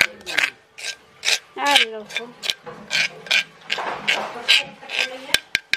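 Metal spoon scraping ground coconut koya out of a stone mortar, in short repeated strokes about two or three a second, with a few sharp taps of the spoon on the stone near the end.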